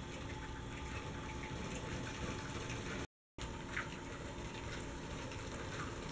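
Lego passenger trains running on plastic track: a steady motor whir with scattered light clicks of the wheels over the track. The sound drops out for a moment about three seconds in.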